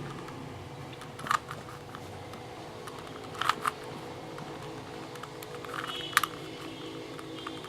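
Plastic 3x3 Rubik's Cube being turned by hand: a few sharp clacks as layers snap round, one about a second in, a quick pair midway and another near the end, over a faint steady hum.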